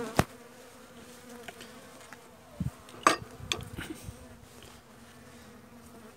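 Honeybees buzzing in an opened hive, a steady low hum. A few sharp knocks cut through it, one right at the start and a cluster about three seconds in.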